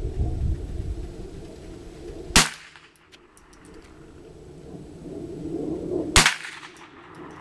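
Two shots from a rimfire rifle, about four seconds apart, each a sharp crack with a short ringing tail.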